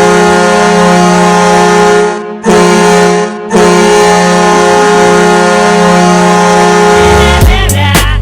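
Hockey arena goal horn sounding one loud, steady, deep tone, broken twice for a moment by short gaps. Near the end it gives way to goal-celebration music with a heavy beat.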